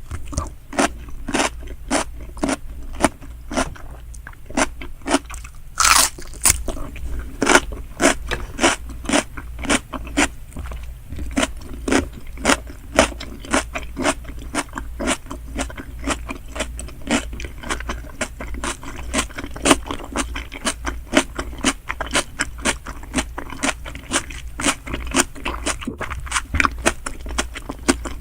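Close-miked chewing of salmon sushi: a steady run of wet, sharp mouth clicks about two to three a second, with one louder bite about six seconds in.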